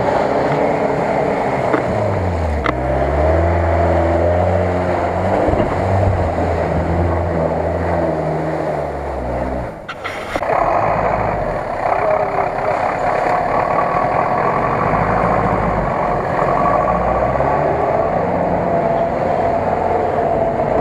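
Off-road 4x4 engines working in deep mud. For the first ten seconds an engine revs up and down with pitch rising and falling. After a brief break about ten seconds in, an engine runs steadily under load.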